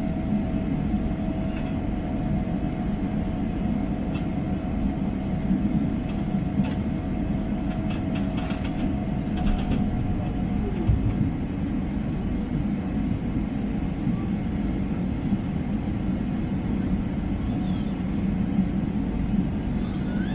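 Boeing 777-300's jet engines at full takeoff thrust: a steady low rumble, with a steady higher whine that fades about halfway through.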